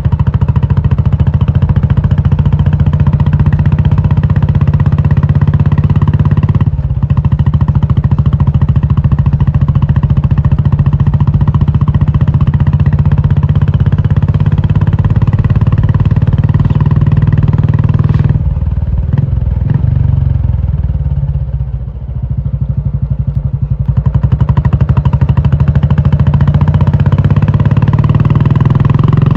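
Royal Enfield Classic 350's single-cylinder engine running loud through an aftermarket Indore exhaust, thumping steadily under throttle. The note breaks briefly about seven seconds in. A little past the middle it falls away for a few seconds, then builds again.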